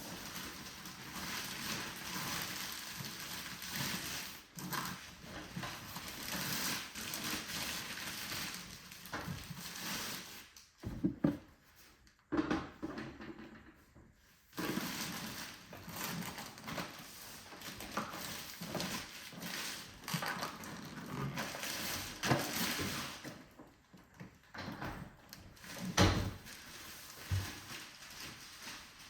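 Unboxing handling noise: packaging rustling and crinkling as items are unwrapped and moved, with a few sharp knocks as parts are set down, two of them louder, about eleven seconds in and near the end.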